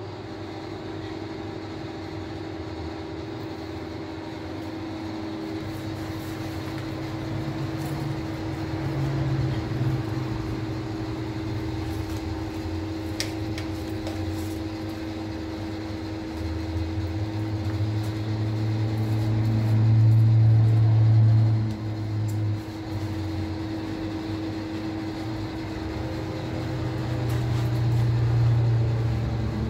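Steady mechanical hum with a constant low tone and a deeper rumble that swells louder a little past the middle, drops away, and builds again near the end.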